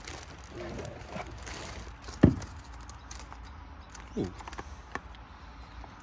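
Objects being handled and rustled while a storage locker's contents are sorted, with one sharp knock about two seconds in, as of an item being put down, and a short "ooh" near the end.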